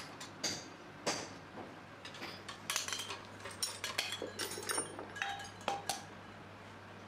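Metal motorcycle rear shock absorber parts and hand tools clinking and knocking as a shock is assembled by hand, with a few knocks at first and a busy run of clinks from about the middle, stopping near the end.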